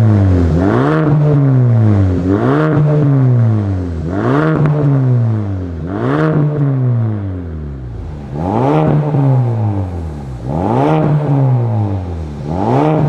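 Ford Focus ST Mk4 wagon's exhaust, through an Fi Exhaust valvetronic cat-back with the valves open, as the engine is revved at standstill. There are about seven quick blips, each rising sharply in pitch and falling back, with a longer pause about halfway through.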